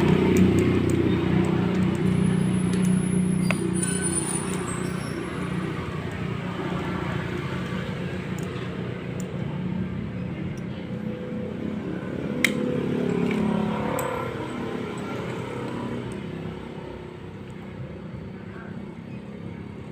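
Maktec MT90 angle grinder motor running with a rough growl, the sign of a burnt armature. It holds a steady pitch while slowly getting quieter, with one sharp click about halfway through.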